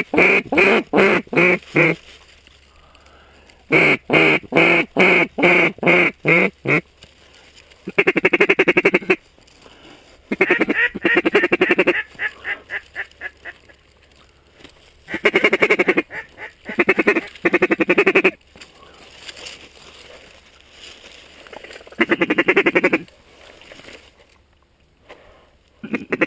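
Mallard duck call blown by a hunter, calling to passing ducks. It gives strings of about eight evenly spaced quacks, followed by several rapid chattering runs of about a second each, with pauses between.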